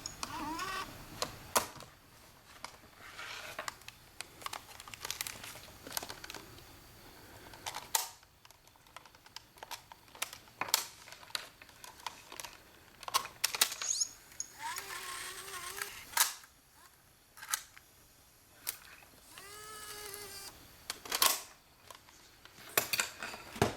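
Irregular sharp mechanical clicks and clunks from a VHS camcorder and its tape cassette being handled: buttons pressed and the cassette compartment worked.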